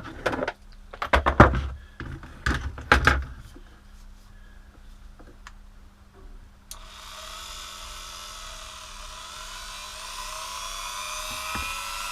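A few sharp knocks and clicks, then about seven seconds in a Titan 130 W electric rotary multi-tool switches on: a steady high motor whine whose pitch slowly rises as it speeds up.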